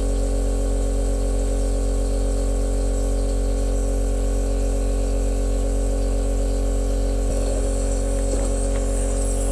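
A steady, unchanging low electrical hum, like a small motor or appliance running, with a couple of faint knocks near the end.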